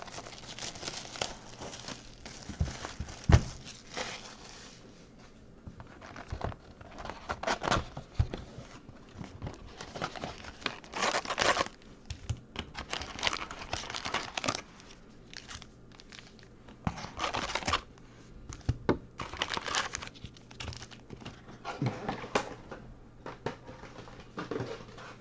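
Plastic shrink-wrap being torn off a box of Donruss Optic trading cards, then crinkling foil card packs being handled and stacked, in irregular rustling bursts. A single sharp knock about three seconds in is the loudest sound.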